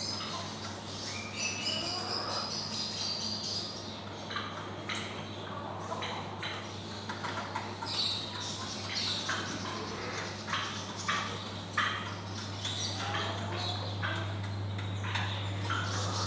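Chickens clucking and squawking, with many short, overlapping calls, over a steady low hum.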